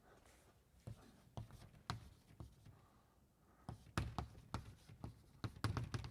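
Chalk writing on a blackboard: a run of irregular sharp taps and knocks, busiest and loudest in the second half.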